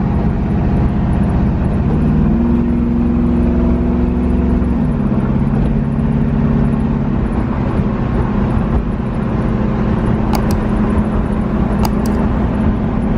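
A car's 6.0-litre LS V8 runs under way. Its note steps up about two seconds in, then drops sharply near five seconds as the freshly rebuilt 4L80E automatic transmission shifts up, and it carries on steady. A couple of brief clicks come near the end.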